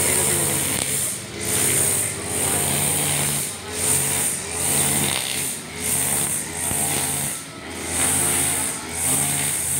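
Husqvarna 542RBS backpack brush cutter's two-stroke engine running with its nylon trimmer line cutting short grass. The sound swells and eases about once a second.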